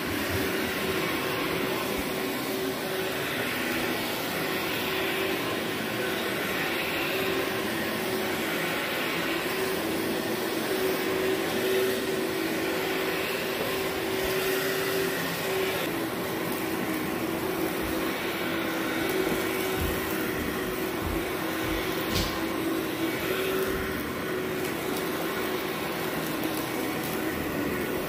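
Workhorse upright vacuum cleaner running steadily as it is pushed over carpet, its motor holding one steady tone. A few knocks and one sharp click come about three-quarters of the way through.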